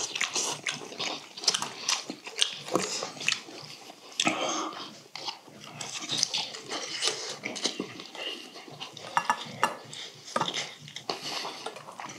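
Close-up eating sounds: chewing and lip-smacking, with chopsticks and metal spoons clicking against stainless steel bowls as fish is picked apart and eaten.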